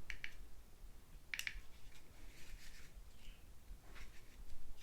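Buttons on a portable Bluetooth speaker being pressed: light plastic clicks, coming in pairs, the loudest pair about a second and a half in, with soft handling noise between.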